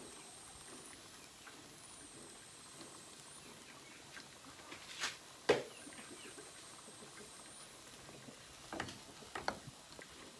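Quiet kitchen background with a few short clicks and knocks, the loudest two about five seconds in and two smaller ones near the end. A faint thin high whine comes and goes.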